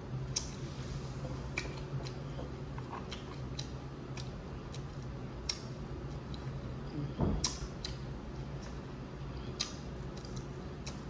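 Close-up eating sounds from a seafood boil: scattered sharp clicks and wet smacks of chewing and handling Dungeness crab, with a louder thump about seven seconds in. A steady low air-conditioner hum runs underneath.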